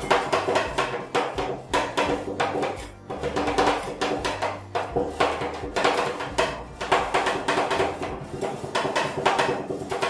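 Two steel ice-cream-roll spatulas chopping plum pieces into ice cream base on a stainless-steel cold plate: quick runs of sharp metal-on-metal strikes, several a second, with a ringing tone between them.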